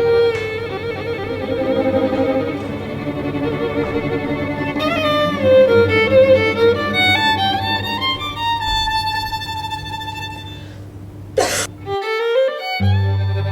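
Background music led by a violin playing a melody with vibrato. Near the end comes a quick rising sweep, the music drops out for a moment, and it resumes over a low bass line.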